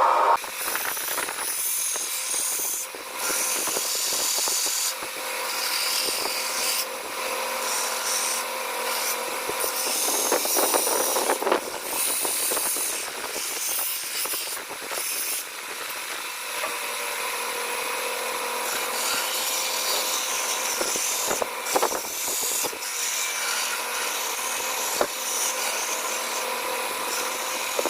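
Electric power tool working the steel of a knife blank: a steady motor whine under a rasping hiss that swells and drops as the steel is pressed to it, with a few short breaks.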